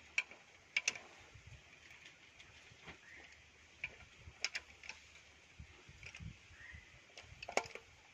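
A metal rod clicking and tapping against the charge pump and splined shaft inside a JCB 3DX transmission bellhousing while the pump is being set. The strikes are sharp and scattered, with the loudest about a second in and near the end.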